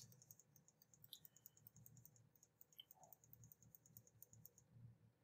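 Computer mouse scroll wheel ticking faintly in a rapid, even run as a document is scrolled, stopping near the end.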